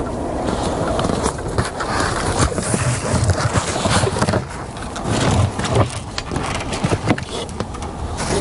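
Irregular knocks, clicks and rubbing from a plate anchor and its rope being handled and lowered over the side of an inflatable rubber boat, with low thuds against the boat's hull.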